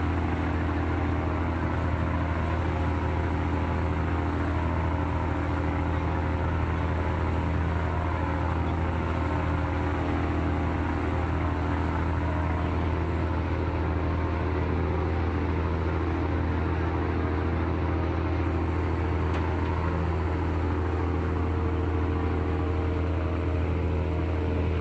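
Passenger boat's engine running with a steady low drone, mixed with the rush of the churning wake water alongside the hull.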